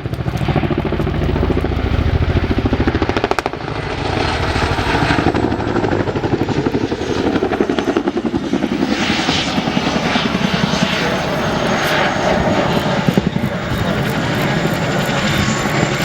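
Boeing Chinook HC2 tandem-rotor helicopter flying close by: loud, rapid, continuous blade chop from its two rotors, with a thin high turbine whine above it from a few seconds in.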